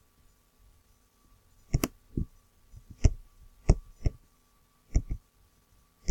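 Computer mouse clicking: about seven sharp clicks, several in quick pairs, starting a little under two seconds in.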